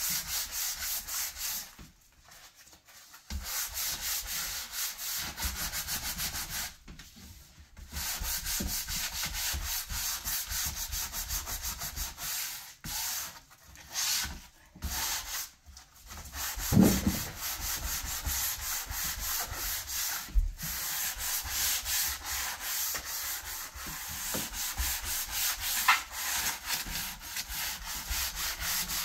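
Sandpaper held in the hand rubbing back and forth in quick strokes over a wooden cabinet door frame during final sanding, stopping for a moment a few times. A single thump about 17 seconds in is the loudest sound.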